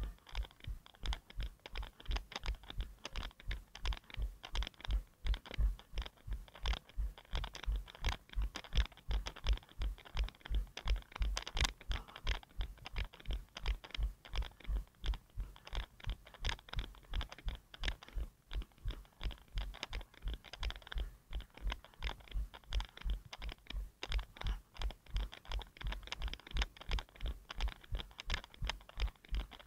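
A runner's footfalls at a steady running cadence, about three a second, each landing a dull thump carried through the head-mounted action camera, with a light scratchy jostle of the camera mount.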